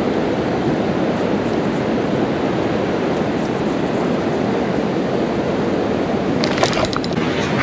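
Steady rush of flowing creek water, with a few short, light clicks near the end.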